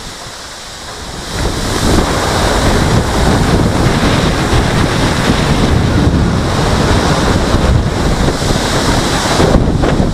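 Strong storm wind buffeting the microphone: a loud, rumbling rush of gusts that rises sharply about a second and a half in and stays loud.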